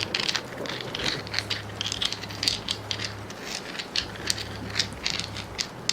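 A quick, irregular run of light clicks and ticks, over a faint steady low hum.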